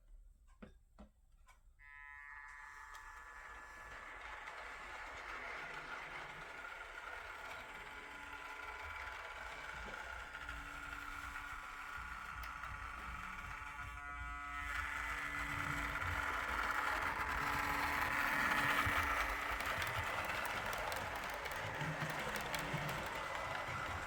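A train approaching and passing, its noise building to a peak about three-quarters of the way through. A steady high-pitched whine sounds over the rumble.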